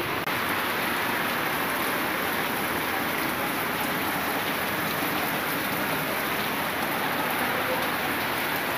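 Heavy rain pouring down onto corrugated roof sheets, a steady, even hiss that does not let up.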